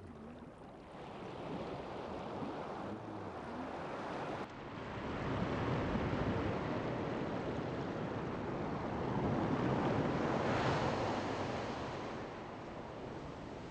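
Wind and sea noise over open water: a rushing hiss that changes abruptly about four and a half seconds in, swells twice and eases off near the end.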